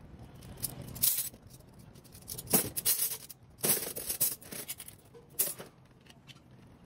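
Stainless steel cutlery clinking and rattling as handfuls of knives and forks are handled and dropped into a plastic tub, about five separate clinks.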